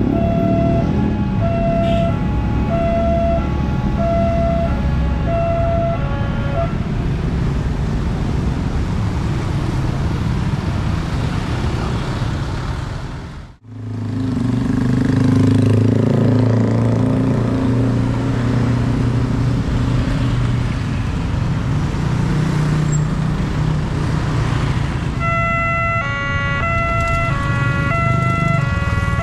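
A level-crossing warning siren beeps in a regular pulse over a crowd of motorcycle engines, then stops after about seven seconds, leaving motorcycles and other traffic running past. The sound briefly fades out midway. Near the end the crossing siren starts again, a louder alarm stepping between several pitches, warning that a train is coming and the barriers are lowering.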